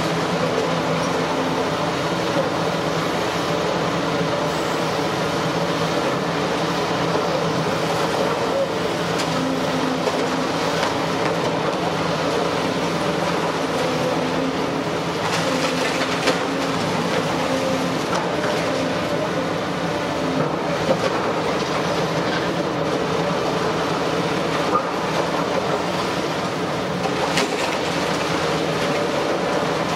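Demolition excavator's engine and hydraulics running steadily as its steel jaws crush concrete floor slabs, with broken concrete clattering down and a few sharper knocks.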